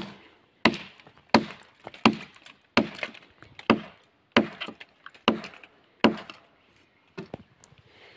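Machete blade chopping into the bark of a felled log: about nine sharp chops, roughly one every three-quarters of a second, stopping about six seconds in.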